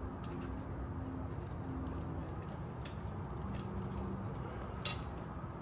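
Light, scattered metallic clicks of hand-tool work on the motorcycle's starter mounting, with one sharper click about five seconds in, as a loosened Allen bolt is worked out. A steady low hum runs underneath.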